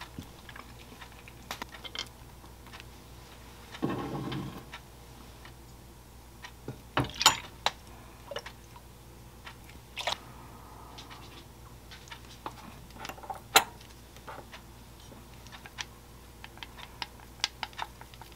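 Small kitchen handling sounds: scattered light clicks and taps of utensils against dishes, with a short rustle about four seconds in and two sharp clinks, about seven and thirteen seconds in, of metal and chopsticks on a small glass sauce bowl.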